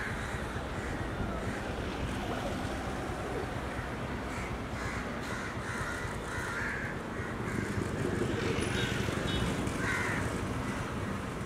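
Street ambience: a steady low rumble of city traffic, with birds calling several times over it.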